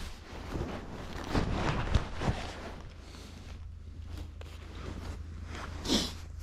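Rustling and scattered light knocks of someone handling gear and moving about close to the microphone, the loudest knocks about two seconds in and a short rustle near the end, over a steady low rumble.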